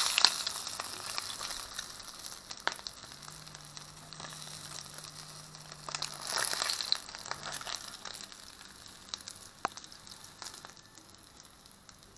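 Fish frying in hot oil in a blackened pan, a steady sizzle and crackle, with a few sharp clicks of a metal fork against the pan as the fried pieces are lifted out. The sizzle swells about six seconds in and dies down toward the end.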